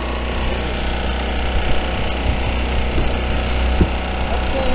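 Fishing boat's engine running steadily, a low, even hum with a rapid knocking beat.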